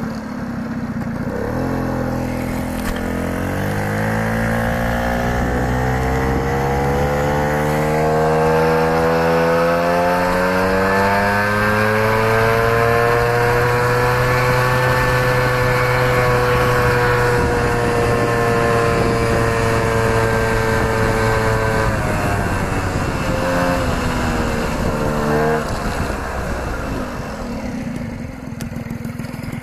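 Piaggio Ciao moped's small two-stroke engine under way: its pitch climbs steadily for about a dozen seconds as it picks up speed, holds level at cruising speed, then drops away about 22 seconds in as it slows. The engine runs normally, without the intermittent odd noise the owner was trying to capture.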